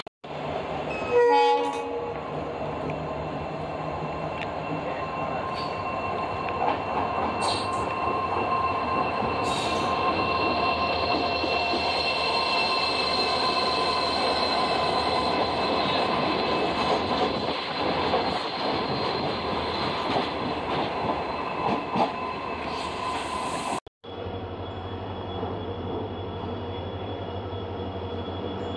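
A train horn sounds briefly about a second in. Then an EMD WDx4D diesel locomotive runs past close by, its turbocharger giving a steady high whine, the 'jet engine' sound, over the engine and rail noise. After a cut near the end, a lower, quieter steady rumble comes from a train approaching in the distance.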